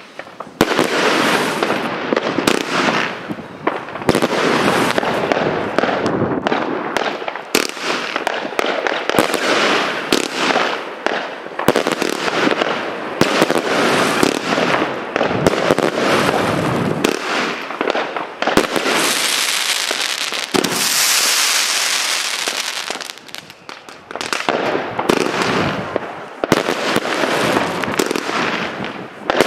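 Evolution Fireworks 'Skyline on Fire' firework battery firing in quick succession: a near-continuous run of launch thumps, bangs and dense crackling from the bursting stars. It grows brighter and hissier around twenty seconds in and eases briefly a few seconds later.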